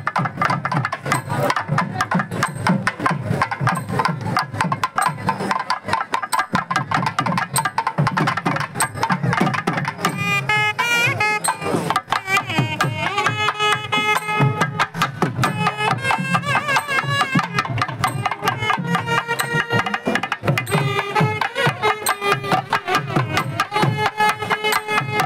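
Thavil barrel drums beating a fast, dense rhythm, joined about ten seconds in by nadaswaram double-reed pipes playing a melody with sliding, bending notes: a nadaswaram-thavil temple ensemble playing.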